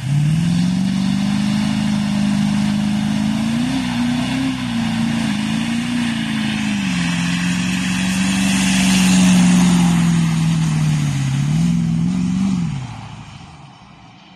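An engine running with its speed rising and falling several times, then winding down and stopping near the end.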